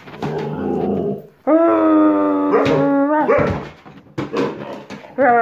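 Siberian husky puppy vocalizing at close range: a rough, moaning call, then one long, howl-like whine held for about two seconds that drops in pitch at its end, followed by a few short, sharp sounds.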